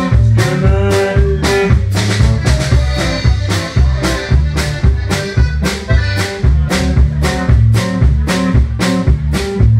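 Button accordion playing an instrumental passage of a Tex-Mex conjunto song over a steady band beat of bass and drums, about three beats a second.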